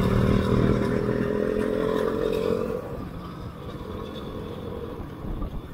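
Royal Enfield Classic 500's single-cylinder engine running through an aftermarket exhaust while riding: a steady engine note for about three seconds, then noticeably quieter for the rest.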